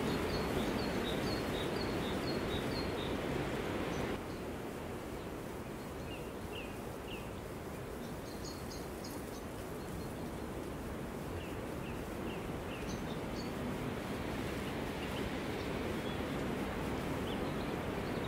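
Steady outdoor ambience hiss with small birds chirping in short rapid series every few seconds; the background hiss drops a little about four seconds in.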